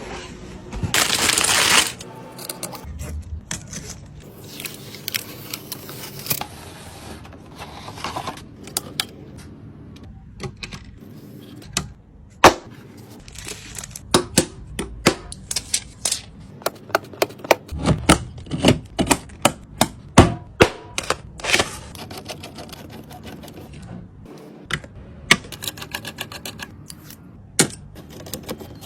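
Computer parts being handled and fitted during a PC build: a run of sharp clicks, taps and plastic-and-metal clacks, coming thicker about halfway through, with a loud rustling hiss near the start.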